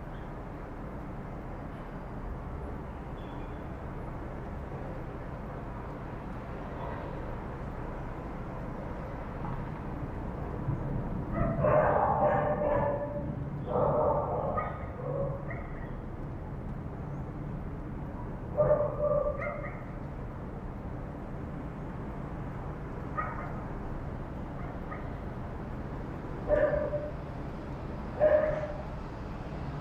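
Dogs barking in short bouts, the first about a third of the way in and then every few seconds to the end, over a steady low background rumble.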